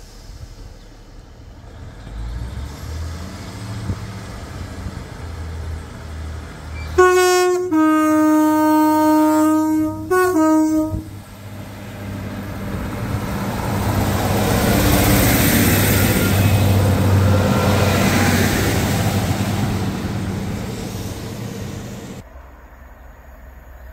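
A train sounds its two-tone horn, a high note dropping to a low one held for about three seconds, then a short second high-low blast. It then passes at speed, its engine and wheel noise swelling and fading before cutting off suddenly near the end.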